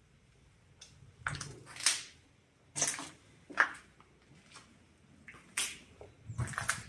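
Footsteps on a concrete floor strewn with rubble and grit, about seven uneven steps.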